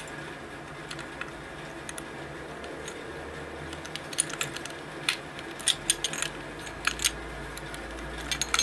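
Small metallic clicks and clinks of an old surface-mounted door lock being reassembled, its parts handled and fitted into the metal lock case. A few light clicks at first, coming more often in the second half.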